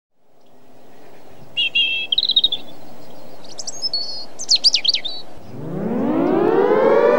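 Birds chirp in short calls over a faint outdoor background; then, about five seconds in, a civil-defence siren winds up, its pitch rising steadily and levelling into a held wail.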